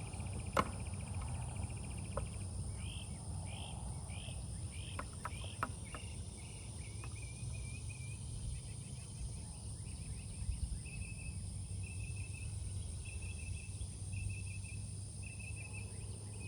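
Insects chirping in repeated short trills over a steady low rumble. A sharp click comes about half a second in, and a few lighter clicks come around five seconds.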